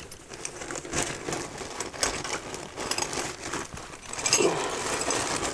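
Crinkling rustle with irregular light clicks and taps as hand tools such as pliers are handled.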